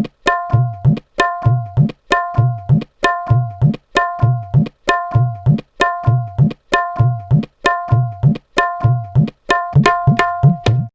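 Tabla playing a short looped pattern, repeating about once a second. Deep bayan strokes slide upward in pitch, and the treble dayan strokes ring with a clear tone.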